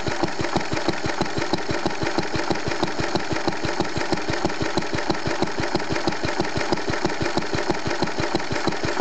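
Lister D single-cylinder stationary engine running steadily on its own, an even chuff of exhaust beats about five times a second.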